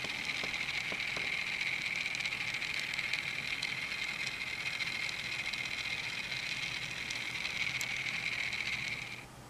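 Teeny Trains PS-220B 1/1000-scale electric train running around its oval track: a steady high-pitched whine that cuts off suddenly near the end.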